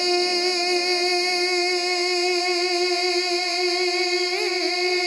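A man's voice holding one long sung note in a devotional rubai recitation, then breaking into quick wavering turns of pitch near the end.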